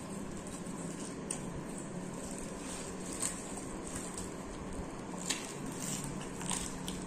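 Someone eating by hand: fingers tearing paratha and scooping curry from a plate, and chewing, with a few short, sharp smacks or clicks over a steady background hum.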